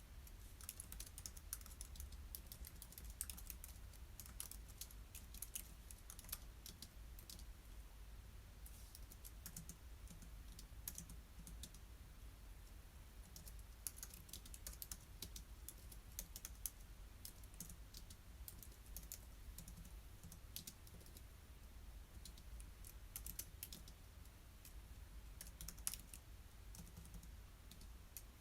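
Faint typing on a computer keyboard: runs of quick key clicks with short pauses, over a low steady hum.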